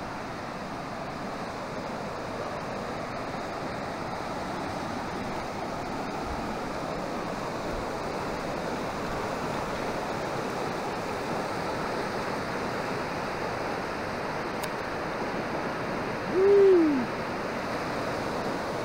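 Swollen mountain river in flood, rushing over rapids: a steady roar of churning water. About three-quarters of the way through, a short hoot-like tone rises and falls once over the water.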